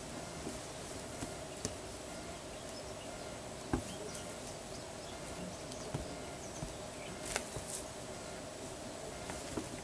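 Kittens scuffling at play, with a few light knocks and clicks, the strongest about four seconds in, over a steady hum.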